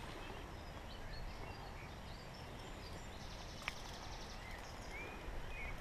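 Faint outdoor ambience: a steady low hiss with scattered short bird chirps and a brief buzzy trill, and one sharp click a little before four seconds in.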